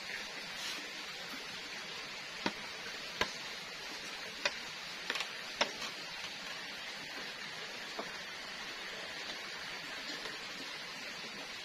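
Wood fire burning in a stone stove under a pot: a steady hiss with six or so sharp pops and clicks, several of them bunched near the middle.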